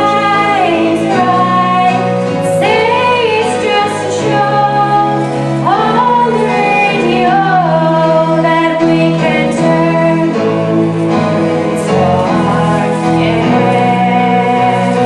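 Music: a female voice singing a melody over sustained instrumental chords.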